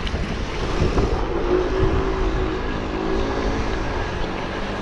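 Low wind rumble on the microphone of a moving bicycle, with a motor vehicle's engine humming past from about a second in until near the end, its pitch bending gently.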